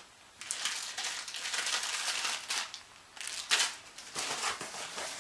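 Plastic packaging crinkling as it is handled: one long stretch of crinkling, then two shorter bursts.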